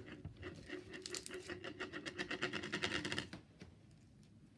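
Foam-bead slime being squeezed and worked by hand, a quick run of small crackles and pops for about three seconds that then stops.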